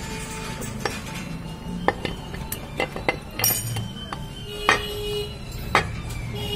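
Sharp metallic clinks and knocks, about eight in all, some ringing briefly: steel tools and gearbox parts being handled and set down against the casing during gearbox assembly.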